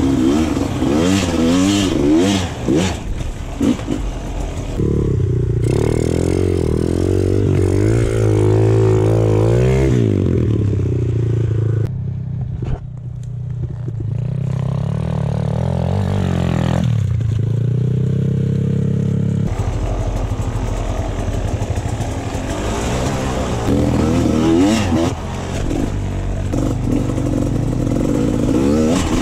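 Off-road motorcycle engines revving hard and easing off again and again while climbing steep dirt hills, across several cut-together clips. A quieter, more muffled stretch comes about a third of the way through.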